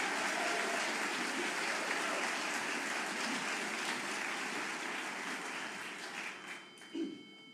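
Audience applauding, the clapping dying away near the end, followed by one short vocal sound.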